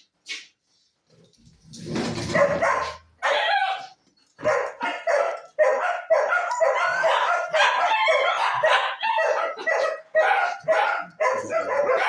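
Dog barking, a few barks at first and then rapid, nearly continuous barking through the second half.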